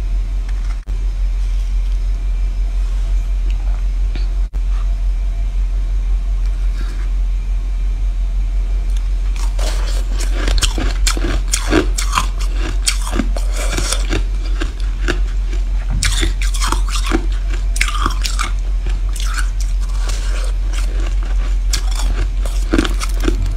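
Repeated crisp crunching bites into a dyed ball of packed snow-like ice, starting about ten seconds in and going on in quick irregular strokes, over a steady low hum.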